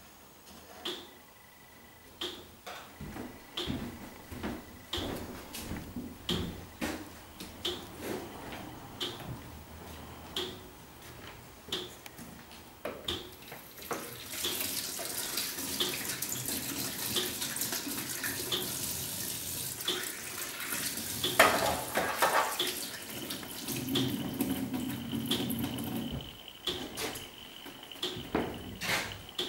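Short, evenly spaced ticks about once a second, then from about halfway through a kitchen tap running into a stainless-steel sink while dishes are rinsed, with one loud clatter of crockery.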